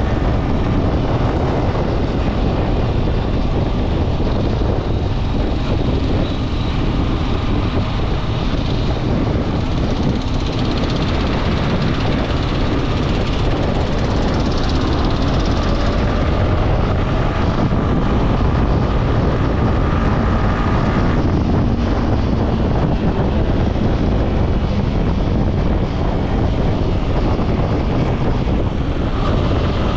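Steady wind rush and low rumble on a helmet camera's microphone while riding a sport motorcycle at around 60 km/h, with the engine's drone underneath. The camera's microphone is said to be faulty.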